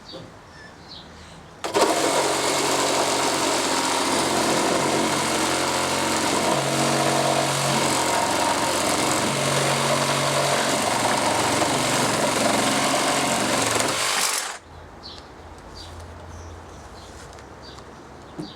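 Cordless reciprocating saw cutting, starting suddenly a couple of seconds in and running steadily for about thirteen seconds before stopping.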